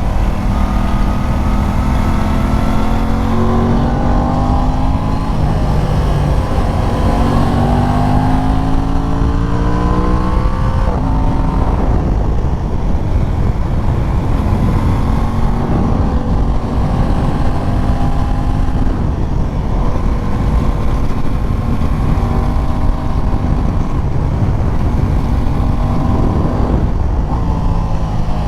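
Aprilia RS660's 659 cc parallel-twin engine under way on a motorcycle ride. It revs up and drops in pitch at each gear change several times in the first ten seconds or so, then runs at a steadier pitch with small rises as the throttle is opened.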